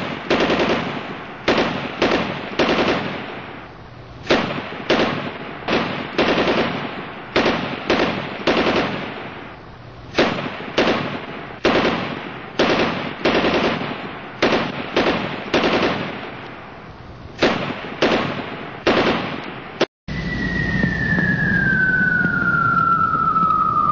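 Gunfire: a long string of single shots, one or two a second at irregular spacing, each ringing out after it. About twenty seconds in it cuts off abruptly, and a single high tone slides slowly down in pitch over a steady low rumble.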